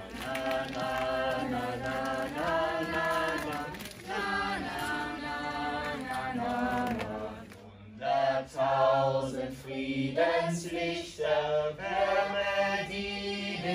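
A group of voices singing together in sustained notes, with a short pause a little past halfway before the next, louder phrase.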